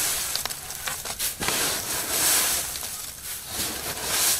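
Hands digging through dry hay packed into a cardboard hay-box cooker: a steady rustling and crackling with scattered small clicks.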